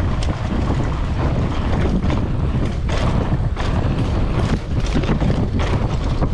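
Wind buffeting the microphone of a handlebar-mounted camera as a mountain bike rolls over concrete paving slabs, with many short clicks and rattles from the bike.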